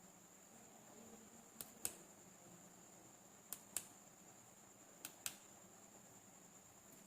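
Three pairs of sharp clicks about a second and a half apart, each pair a fifth of a second apart, over a faint steady high-pitched whine.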